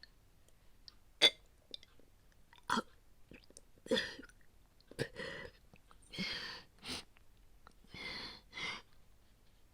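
A woman retching and gagging again and again, about eight heaves: a few sharp single heaves at first, then longer, breathier heaves close together in the second half. These are acted vomiting sounds from a role-play voice performance.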